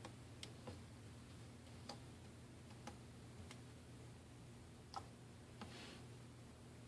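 Faint, irregular light clicks and taps of small repair tools and parts on a smartphone being disassembled, about eight over several seconds, the loudest about five seconds in, over a steady low hum.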